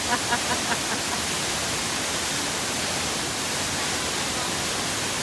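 Steady rushing roar of a waterfall pouring into a pool, an even wash of water noise.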